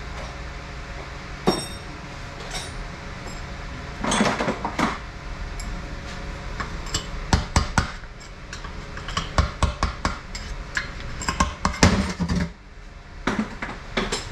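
Metal knocks and clinks as the oil pump body and gears are knocked out of a Mercedes 722.6 (Chrysler NAG1) automatic transmission and handled. There is a ringing strike about a second and a half in, a scraping rattle about four seconds in, then a run of quick clinks.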